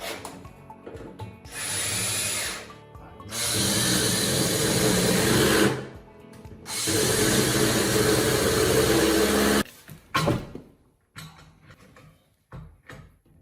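A power drill/driver running in three bursts, the last two a few seconds long each, as it drives fixings into the kitchen units. Background music plays underneath.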